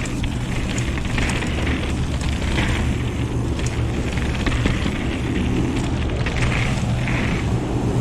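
Wind buffeting the microphone of a bike-mounted or helmet camera as a full-suspension mountain bike rides a wet, muddy trail: a steady low rumble with the tyres and bike rattling underneath.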